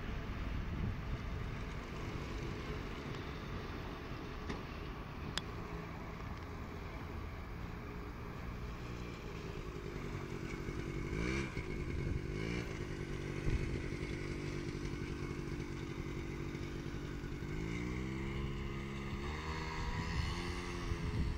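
Honda Lead scooter engine running as it is ridden around. The engine's pitch rises and falls with the throttle, sweeping up and back down about halfway through and climbing again near the end.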